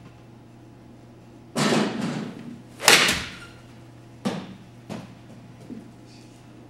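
A golf club strikes a ball off a hitting mat with one sharp, loud crack about three seconds in, the loudest sound here. It follows a loud sudden noise about a second earlier, and a few fainter knocks come after it.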